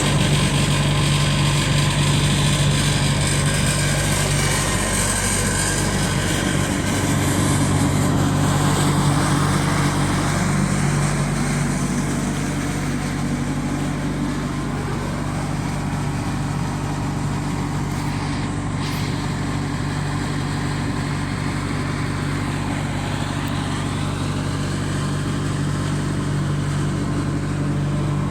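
Wood chipper's engine running steadily under power, with a louder, rougher spell for the first ten seconds or so before it settles.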